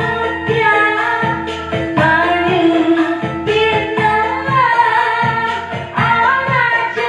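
A woman singing a Javanese song over backing music with a steady beat.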